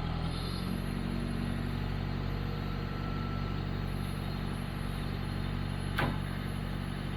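Tractor diesel engine running steadily, with a single knock about six seconds in.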